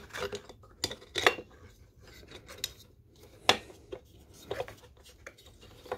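Scattered light clicks, knocks and rubbing as a muffler is handled and pressed against a two-stroke leaf blower's engine housing while its bolt holes are being lined up. The sharpest knock comes about halfway through.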